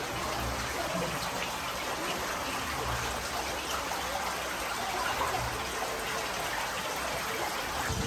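Shallow rocky mountain stream flowing, a steady rush of water.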